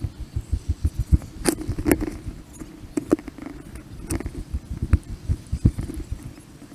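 Field recording played back at four times speed: a dense, rapid run of low thumps with a few sharp clicks scattered through it, over a faint steady hum.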